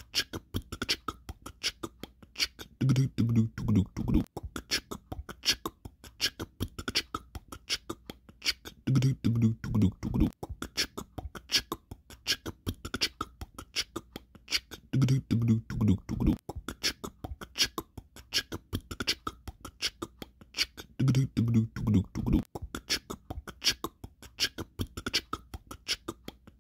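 Outro music: a looped beatbox track of rapid, evenly spaced mouth-made clicks, with a short low voiced phrase that comes back about every six seconds.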